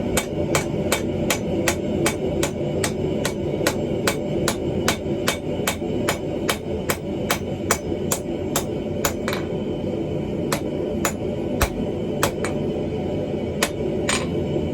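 Hammer blows on hot steel being forged into a hammer eye drift, struck at a steady pace of about three a second, then slowing to a few scattered blows after about nine seconds. A steady low rumble runs underneath.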